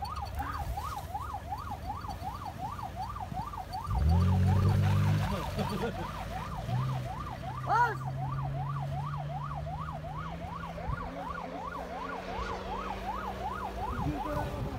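An electronic siren yelping without a break, its pitch sweeping up and down about three or four times a second. About four seconds in, an off-road SUV's engine revs up loudly, then settles into a steady drone as it drives away.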